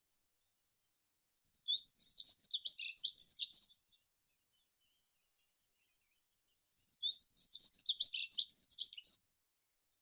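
A songbird singing two high-pitched phrases of quick, varied chirping notes, each about two and a half seconds long, with a pause of about three seconds between them.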